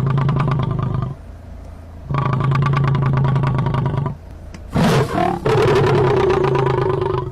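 A large animal's low, rasping calls: three long ones with short breaks between them.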